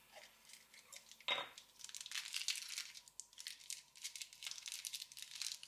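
Hands in rubber gloves handling a clear tube and small parts: a sharp clink about a second in, then a quick run of crinkling and rustling.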